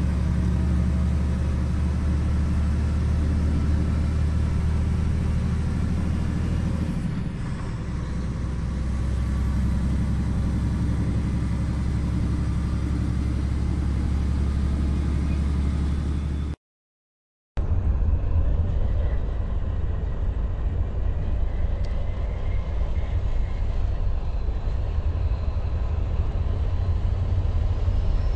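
Steady low engine and road drone inside a tractor-trailer cab while driving. It drops out for about a second at a cut about two-thirds of the way through, then resumes.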